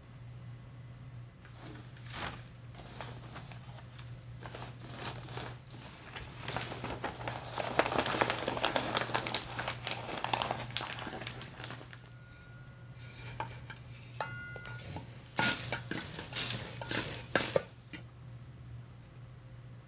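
Potting mix being handled in a clear pot during repotting: gritty rustling and scraping of soil with small clicks and knocks of the container, busiest about eight to ten seconds in and again near the end.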